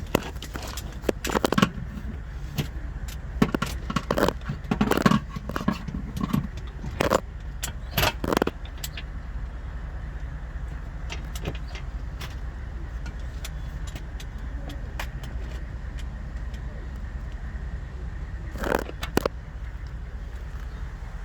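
Metal hand tools clinking, rattling and scraping in irregular bursts while a 13 mm bolt is worked loose, over a steady low hum. A busy stretch lasts about nine seconds, then there is another short clatter near the end.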